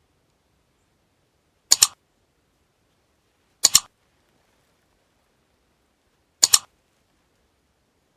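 Sharp double clicks, each pair a split second apart, repeated four times about two seconds apart, with silence between.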